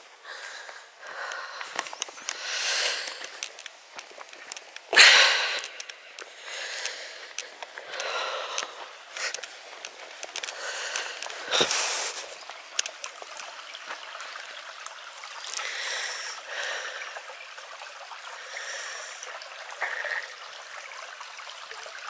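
A small shallow stream trickling and babbling over stones, with louder swishes of footsteps through long grass several times, the strongest about five seconds in and a sharper one near twelve seconds.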